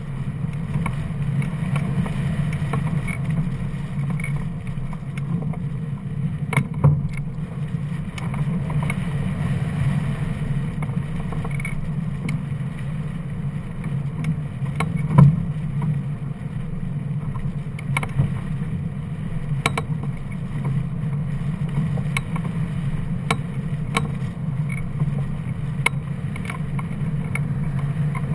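Steady rush of airflow over a camera mounted on a hang glider in flight, with occasional sharp clicks and knocks, the loudest about halfway through.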